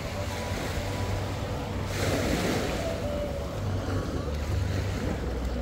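Small waves washing onto a sandy beach, with a fuller wash of surf about two seconds in. Wind rumbles on the microphone.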